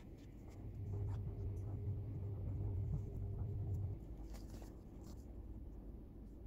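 Faint scratching and rubbing of fingers picking and peeling loose dead skin from the sole of a foot, the skin shedding after an exfoliating foot-peel mask. A low steady hum comes in about a second in and stops about four seconds in.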